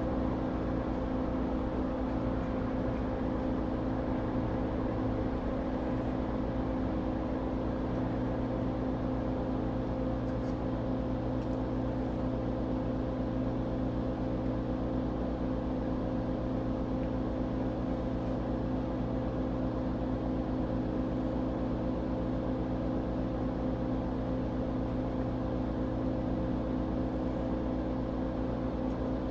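Steady hum of running workbench equipment, a fan-like whir with several steady tones that does not change.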